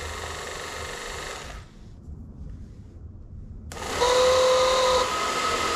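VW Super Beetle fresh air blower motor bench-tested straight off a car battery through jumper leads: it runs with a whine, cuts out about a second and a half in, then starts again about two seconds later. It restarts louder with a strong whine for about a second, then settles a little quieter, in keeping with a test of its two speeds.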